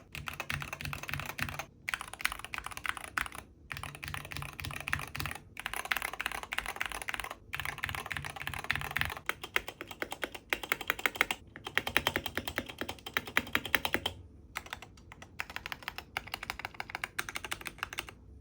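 Fast typing on a Wooting 60HE keyboard: dense clacking keystrokes in passages a second or two long, split by brief pauses. Some passages carry a deeper thud and others sound thinner, as the board is typed on both with and without a mousepad beneath it.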